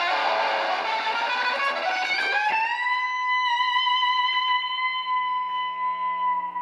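Electric guitar solo: a fast run of notes, then a note bent upward about two and a half seconds in and held.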